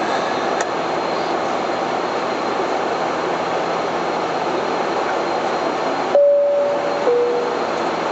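Cockpit noise of a Bombardier Dash 8 Q400 in flight: a steady, dense rush from its two Pratt & Whitney PW150A turboprops and the airflow. Near the end the noise cuts out and a two-note falling electronic tone sounds, the higher note about a second long and the lower one shorter.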